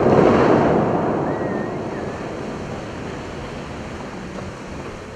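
Rushing hiss of the Bellagio's tall fountain jets, water spraying up and raining back onto the lake, dying away gradually.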